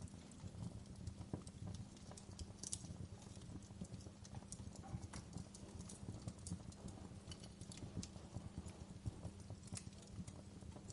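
Wood fire crackling, with irregular sharp pops and ticks over a low steady rumble of the burning.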